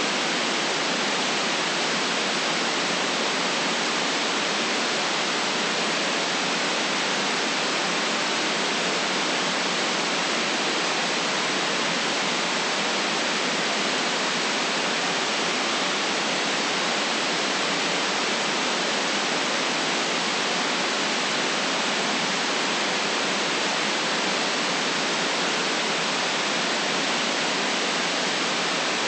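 White noise for sleep: an even, unchanging hiss at constant loudness, trimmed so it has almost no deep rumble and no very high top.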